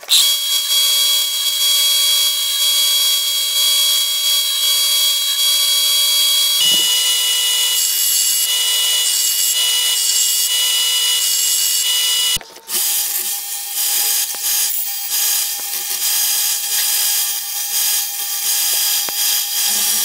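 Bench belt sander running and grinding a steel axe head, a steady motor whine over the rasp of the abrasive belt. The sound changes abruptly at edited cuts about a third of the way in and again just past halfway, where a different steady machine tone takes over.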